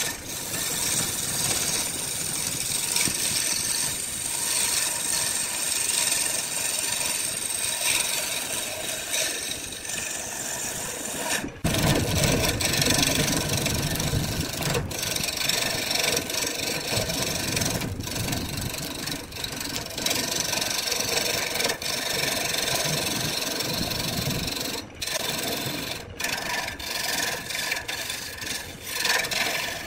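Wood lathe spinning a large wooden blank while a hand-held flat turning chisel cuts it: a steady rasping, scraping cut over the lathe's running, with a few brief dropouts.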